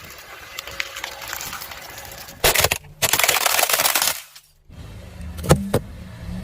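Crackling and crunching of brittle items being crushed under a car tyre, with two louder crunching bursts past the middle. This breaks off briefly and gives way to a low steady hum with sharp cracks.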